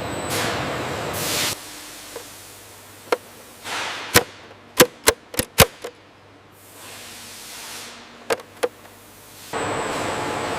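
Sharp, short knocks: one about two seconds in, a quick run of five or six a few seconds in, and a pair later. They sit between stretches of steady hissing noise that drops away after the first second and a half and returns near the end.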